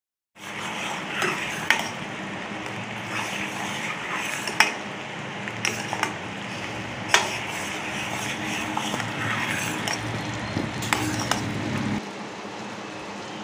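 Sugar syrup boiling in a stainless steel saucepan with a steady hiss, while a steel ladle stirs it and now and then clinks sharply against the pan; the syrup is being cooked to one-string consistency. Near the end the hiss drops quieter.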